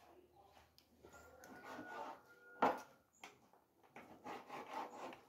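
Kitchen knife slicing boneless beef and knocking on a plastic cutting board: a series of short taps and scrapes, with one sharper knock about two and a half seconds in.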